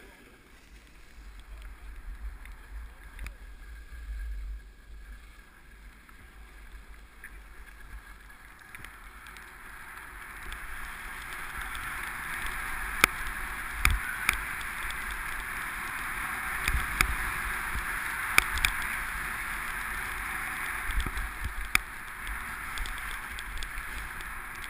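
Skis sliding and scraping over snow, growing steadily louder from about ten seconds in as the skier picks up speed, with a low wind rumble on the microphone in the first few seconds and a handful of sharp clicks and knocks.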